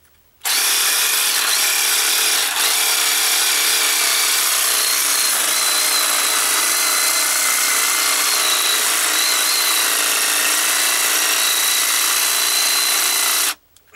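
Reciprocating saw with a 6-inch metal-cutting blade cutting into a foundation bolt at the concrete. It starts about half a second in and runs at a steady speed, a high whine over the rasp of the blade, then stops abruptly near the end.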